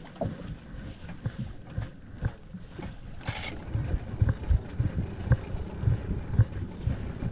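Wind buffeting the microphone on a small fishing boat, with irregular low thumps throughout and a brief hiss about three seconds in.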